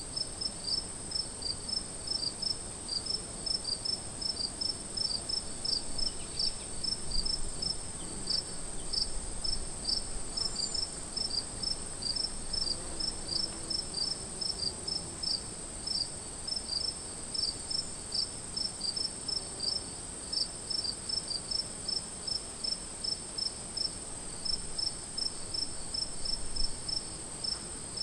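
Crickets chirping in a steady, even rhythm of about two to three chirps a second, over a continuous high-pitched trill.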